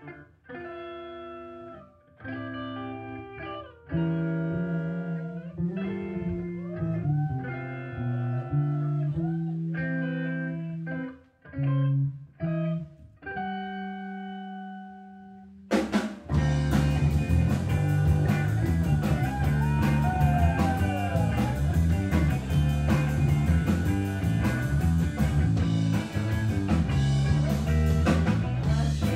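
Live rock band performing. The song opens with an electric guitar alone playing held chords and bent notes in separate phrases with pauses between them. About 16 seconds in, the full band comes in with drums, bass and guitar.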